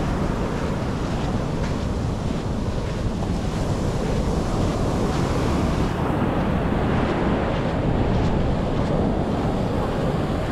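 Sea waves washing onto the beach in a steady rush, with wind buffeting the microphone as a low rumble.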